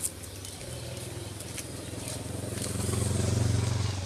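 A motor vehicle's engine running with a low, steady hum. It grows louder over about three seconds and drops off near the end.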